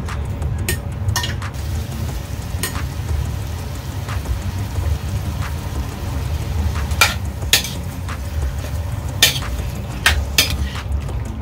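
Marinated chicken pieces frying in a hot stainless steel pan with sautéed garlic and onion, a faint sizzle, broken by sharp knocks and clinks of the pieces and a metal spatula against the pan, more of them in the second half. A low steady hum runs underneath.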